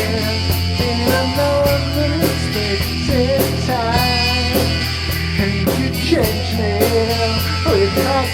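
Rock band playing an instrumental passage: drums with a steady stroke pattern, bass guitar and electric guitars, with a melodic line that bends up and down in pitch.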